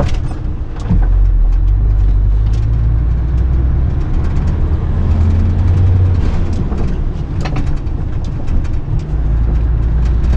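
Heavy truck's engine and road noise heard from inside the cab while driving: a steady low drone that dips briefly about a second in, with frequent small clicks and rattles over it.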